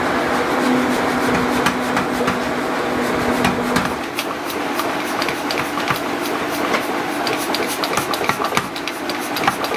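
Belt-driven mechanical power hammer forging a red-hot steel billet. A steady motor hum for about four seconds, then rapid hammer blows, several a second, on the hot steel.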